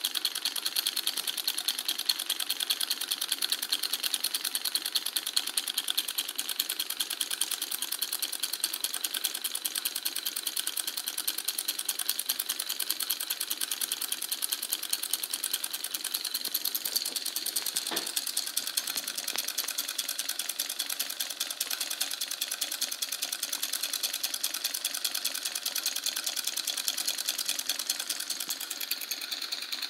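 A homemade two-cylinder solenoid engine running steadily. Its 12-volt long-stroke solenoids, push rods and roller rockers make a fast, light, even clatter.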